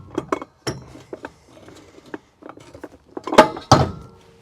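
Metal clinks and knocks as an electric tongue jack is handled and lowered into its mount on a trailer's A-frame tongue. The two loudest clanks come about three and a half seconds in, the last one ringing briefly.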